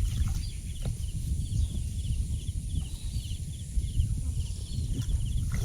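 Outdoor ambience: a steady low rumble with a rhythmic chirping of small animals, several short chirps a second, and a steady high hiss above them.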